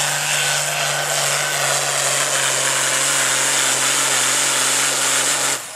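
Altered farm stock John Deere tractor's diesel engine running hard at full throttle, pulling a weight-transfer sled and blowing black smoke. The engine note is steady with a loud hiss above it, and it cuts off suddenly near the end.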